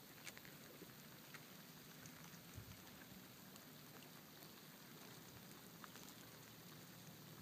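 Near silence: a faint steady hiss with a few scattered soft ticks.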